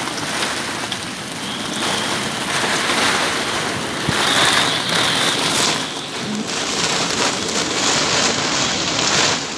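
Heavy wind-driven storm rain hitting a moored sailing yacht's deck and canvas, swelling and easing in gusts.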